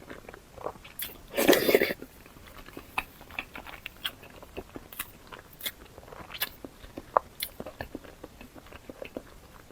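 Close-up mouth sounds of someone chewing food: scattered wet clicks and small crunches, with one louder crunchy bite about one and a half seconds in.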